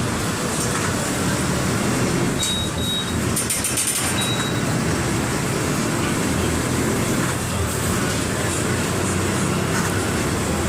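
Mercedes-Benz OF 1721 BlueTec 5 bus's four-cylinder diesel engine running steadily. A short high tone sounds about two and a half seconds in, and briefly again about a second later.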